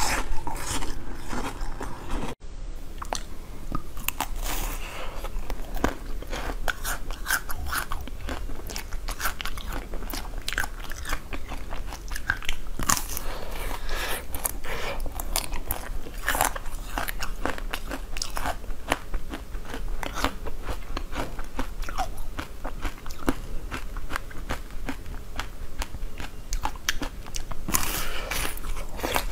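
Close-up crunching and chewing as a frozen chocolate treat is bitten: a dense run of hard cracks and crackles from the frozen coating, with chewing between bites. For the first two seconds it is bites into a frozen jelly cube.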